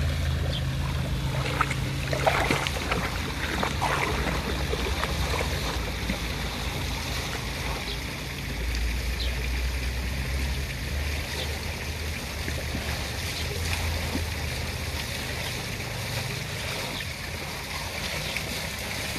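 Water sloshing and splashing as a dog wades through a shallow fountain basin, with a few sharper splashes in the first few seconds, over a steady low rumble.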